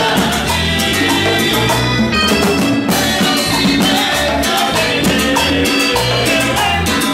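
Live Latin dance band playing loudly: a steady bass line under congas and the scrape of a metal güiro, with voices singing.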